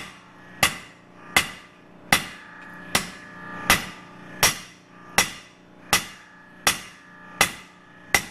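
Hand hammer striking red-hot leaf-spring steel on an anvil in a steady rhythm, about one blow every three-quarters of a second, each blow followed by a ring from the anvil. The steel is being drawn out thinner under the blows.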